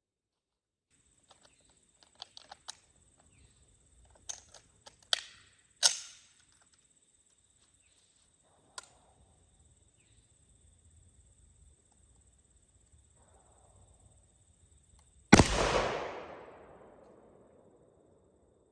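A loud explosion about fifteen seconds in: one sudden bang that fades away over a couple of seconds. Before it, a scattering of small sharp pops and clicks.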